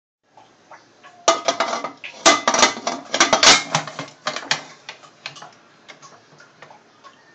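Aluminium pressure cooker lid set onto the cooker and turned shut, metal on metal with its rubber gasket ring taken out: a clatter of clanks and scrapes, loudest in the middle, thinning to a few light clicks.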